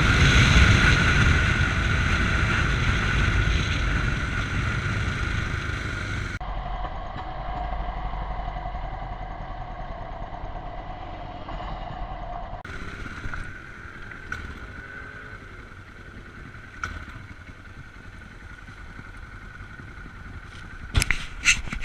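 Yamaha MT-03 motorcycle engine and wind noise heard from the rider's chest, loud at first and then dying away as the bike slows. About six seconds in the sound abruptly turns muffled, it changes again about halfway through, and a few sharp clicks come near the end.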